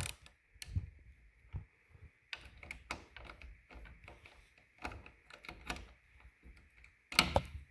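Socket ratchet clicking in short irregular runs as a 5/16-inch bolt is backed out of a garage door opener's motor housing.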